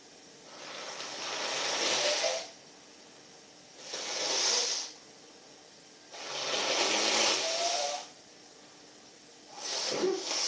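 A person breathing heavily close to the microphone: four loud breathy hisses, each one to two seconds long, a second or so apart.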